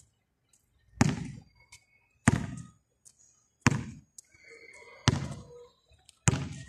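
Basketball dribbled on a concrete court: five slow, evenly spaced bounces, about one every 1.3 seconds.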